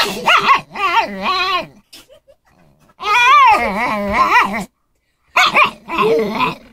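Petit Brabançon dog whining and moaning in three long bouts, its pitch wavering up and down: the dog complaining at a cat that has lain down on its spot.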